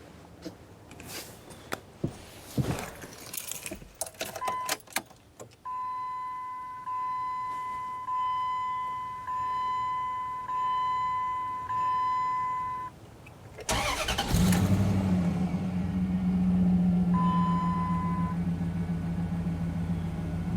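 Dodge Durango's warning chime beeping in a steady repeated pattern, then the engine cranks and starts about fourteen seconds in and settles into a steady idle: the first start after a fresh oil change. A short chime sounds once more a few seconds after the start.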